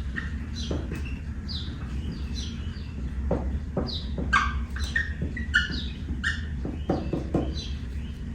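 A bird chirping over and over, short high chirps that fall in pitch about twice a second, with a few sharp metallic clicks from the bolts being handled and a steady low hum underneath.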